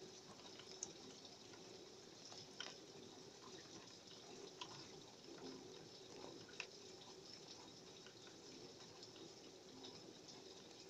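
Faint steady rain, with scattered drips ticking now and then.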